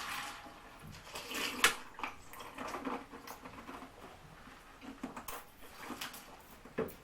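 Ice cubes soaked in fizzy Fanta being scooped from a bowl and eaten: irregular clinks and crunches, the sharpest about one and a half seconds in.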